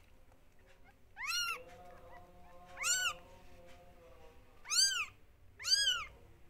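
Newborn kittens mewing: four short, high-pitched cries, each rising and then falling in pitch, spaced one to two seconds apart.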